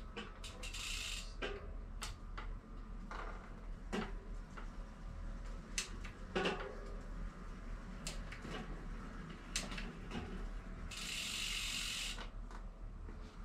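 Metal clicks and ratcheting from hand work on a mountain bike drivetrain during a chainring swap, with the rear derailleur clutch off. Two brief hisses sound, one about a second in and one near the end.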